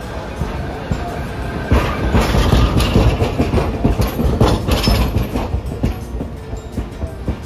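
Hiroshima Electric Railway 800-series streetcar passing close by as it pulls out. Its steel wheels rumble and clatter over the rail joints and crossover points, loudest from about two to six seconds in, then fading.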